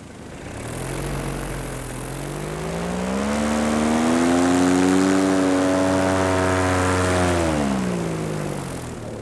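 Paramotor engine and propeller running in flight: the engine is throttled up about three seconds in, held at the higher pitch for several seconds, then throttled back near the end, over a steady rush of air.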